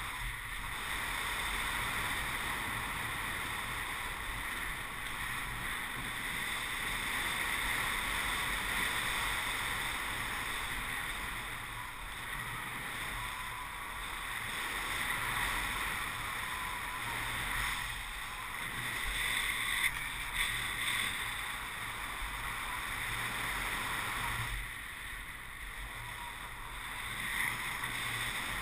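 Steady rush of airflow over the camera microphone of a paraglider in flight, with a couple of brief knocks late on.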